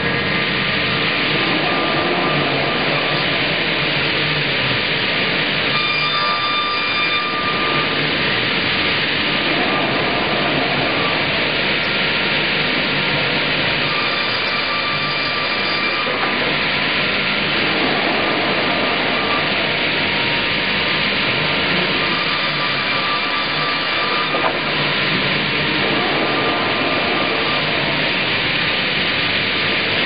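Double-bladed automated circular sawmill, its two circular saw blades set at 90 degrees to each other, running and cutting timber with a steady loud noise. The noise swells and eases about every eight seconds as pieces pass through the blades.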